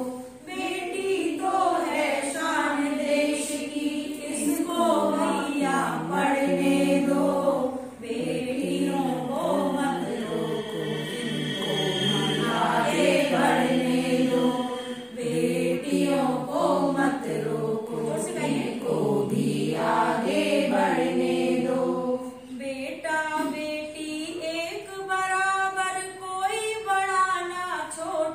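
A group of women singing a Hindi song together, in phrases that run on with short breaths between them.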